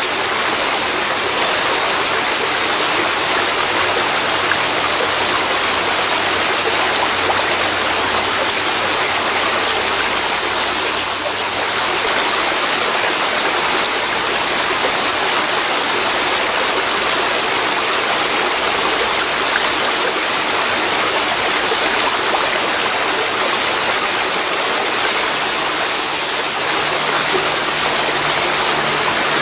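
Waterfall pouring into a river: a steady, loud rush of falling and flowing water.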